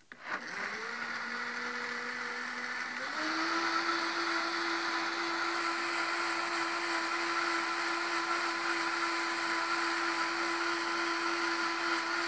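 High-powered countertop blender motor switching on and blending a thin liquid soup. It runs at a lower speed, steps up to a higher speed about three seconds in and holds steady, then is switched off near the end and spins down.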